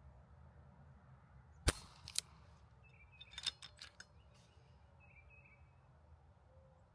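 A single shot from a RAW Micro Hunter .22 PCP air rifle with a shrouded barrel: one sharp crack, followed by a fainter crack about half a second later. About two seconds after the shot comes a quick run of sharp clicks.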